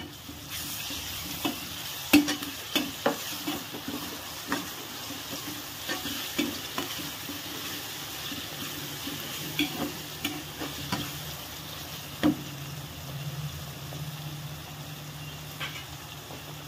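Chopped onions, green chillies and freshly added tomatoes sizzling in oil in a kadhai while a spatula stirs them, scraping the pan with sharp knocks against its side every second or two.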